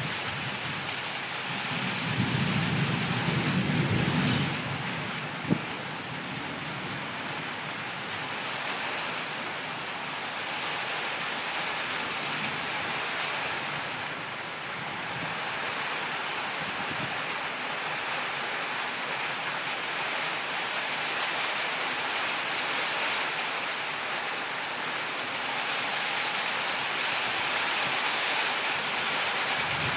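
Heavy thunderstorm rain, a steady hiss throughout. A low rumble of thunder comes a couple of seconds in and lasts about two seconds, followed by a single sharp knock about five seconds in.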